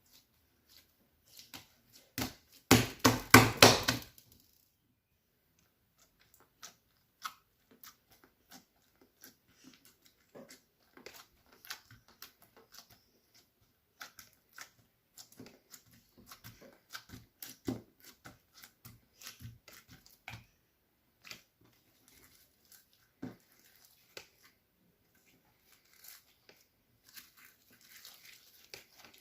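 Slime being squeezed and pressed by hand, sticky pops and crackles: a dense, loud run about two to four seconds in, then scattered small clicks and pops.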